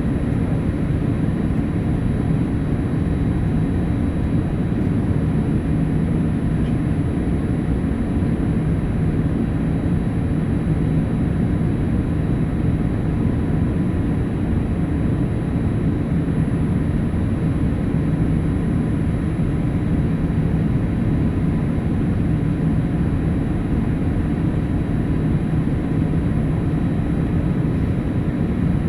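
Steady cabin noise inside a Boeing 787-8 Dreamliner in flight: a low rush of airflow and the hum of its GEnx-1B engines, even throughout, with a few faint steady whines above it.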